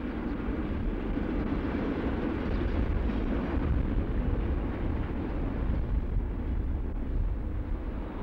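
A railcar running along the track: a steady, rumbling train noise.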